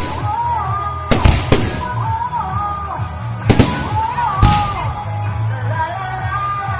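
Fireworks going off in four sharp bangs, two close together about a second in and two more in the middle, over loud music with a melody and a steady bass.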